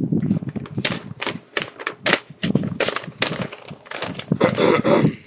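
A printed sheet of paper being handled and unfolded, making a run of irregular crackles and rustles.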